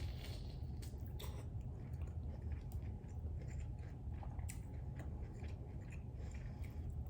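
Close chewing and mouth sounds of a person eating corn, a scatter of soft wet clicks and crunches over a steady low hum.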